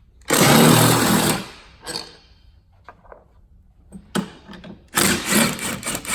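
A cordless power driver spins out 10 mm bolts, running in two bursts: about a second long just after the start, then again about five seconds in. Light clicks of the tool and bolts come in between.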